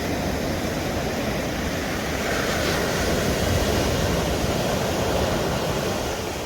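Pacific surf breaking and washing up the beach, a dense steady rush that swells louder a couple of seconds in and eases off near the end.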